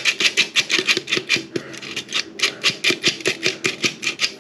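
Rapid, even scraping strokes of a kitchen utensil working ingredients in a mixing bowl, about six strokes a second.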